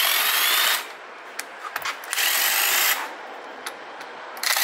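Ryobi cordless impact wrench undoing the main bearing cap bolts on a Mitsubishi 4D56U diesel engine block. It runs in three bursts: about a second at the start, another just after two seconds in, and a short one near the end.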